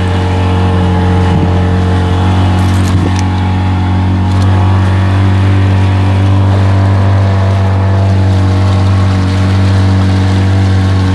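Motorboat engine running steadily at speed as the boat drives through the water, with water rushing and splashing along the hull.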